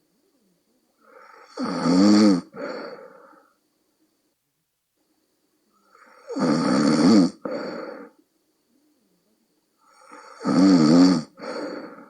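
A person snoring heavily in deep sleep with a croaking, bullfrog-like snore. There are three snores about every four and a half seconds, each a loud pitched, wavering snore followed after a brief break by a softer one.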